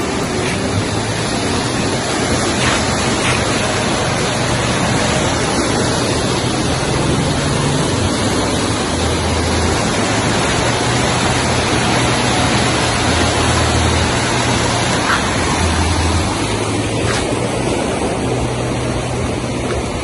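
Steady rush of a swollen river running high after heavy rain.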